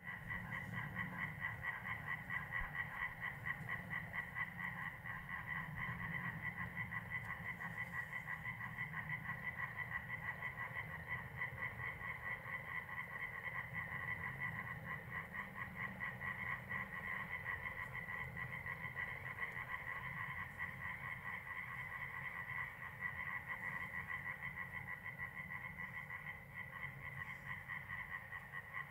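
A corncrake calling: a dry, rasping double note repeated over and over without a break.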